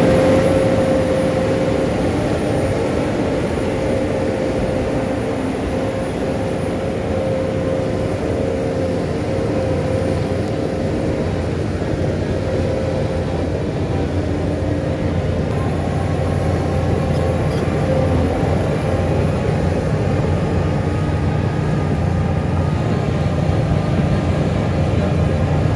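Heavy diesel engine of earthmoving machinery running steadily under load, with a deep low hum and a steady mid-pitched whine.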